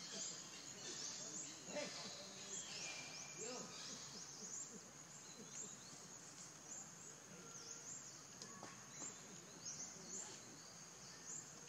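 Quiet forest ambience: repeated short, high rising chirps from insects and birds over a faint low murmur.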